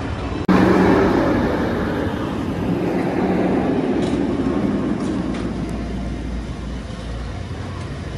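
A steady vehicle rumble that starts abruptly about half a second in and slowly eases off.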